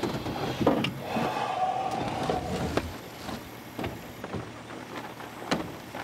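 An old pickup truck's engine running, which stops about three seconds in. Scattered clicks and knocks follow.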